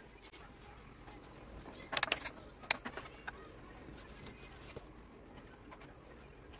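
Sharp clicks and knocks of tools being handled on a workbench, a quick cluster about two seconds in and a couple of single ones soon after, over quiet room noise with a bird calling in the background.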